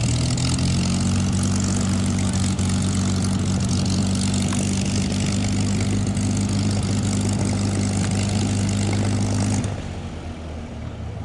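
P-51 Mustang's Packard Merlin V-12 running steadily at idle on the ground, with a deep, even drone. The sound drops away abruptly about ten seconds in, leaving a much fainter rumble.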